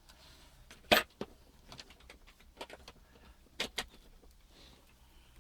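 A few sharp plastic clicks and knocks of a charger being plugged into a 36 V lithium-ion e-bike battery pack: a loud click about a second in, lighter handling clicks, and a quick double click a little later.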